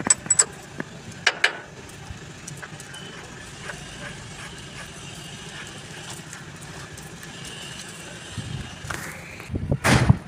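Sharp metallic clicks and knocks from hand-work on a truck's lift-axle spring shackle bolt and nut: a few clicks in the first second and a half, a low steady background between, and a cluster of louder knocks near the end.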